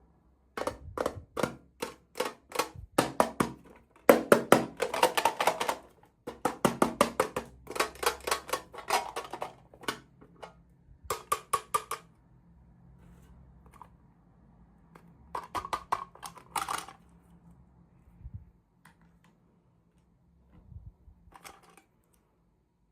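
Plastic packaging being handled and crinkled open, in quick runs of crisp crackling clicks that come in several spells with pauses between.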